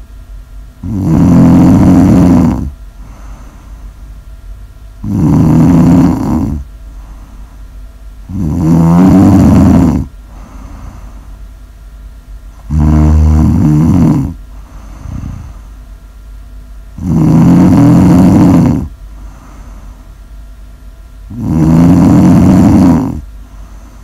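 Loud, regular snoring from someone asleep: six snores about four seconds apart, each lasting one and a half to two seconds. The middle one is rougher and more rattling.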